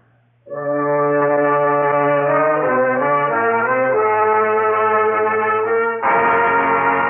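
Brass-led orchestral music: held chords from trumpets and trombones, starting about half a second in, shifting chords in the middle, and growing louder and fuller about six seconds in.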